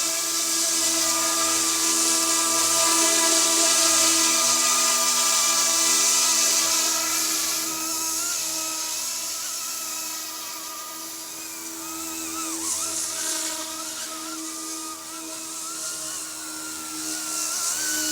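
Eachine E250 RC Apache helicopter in flight, its electric motor and rotors whining steadily. The sound is louder for the first several seconds and eases off around the middle, and its pitch wavers slightly later as the throttle is worked.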